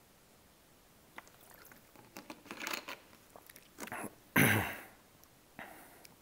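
Clear plastic water bottle crinkling and clicking as it is handled after a drink, with one louder sudden noise about four and a half seconds in.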